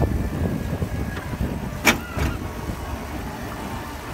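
Steady low rumble of a moving elevated amusement-park ride car on its track, with a short sharp sound about two seconds in.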